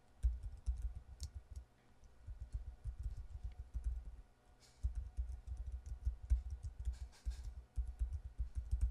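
Rapid typing on a computer keyboard: two long runs of keystrokes with a short pause about halfway through.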